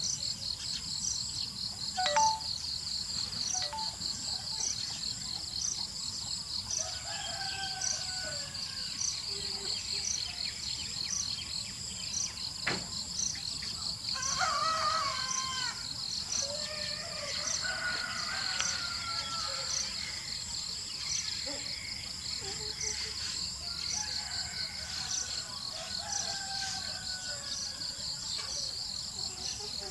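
Outdoor ambience: a steady high chirring of insects, with a faint regular tick about once a second, and scattered bird chirps and calls over it. There are a couple of sharp clicks, the louder one about two seconds in.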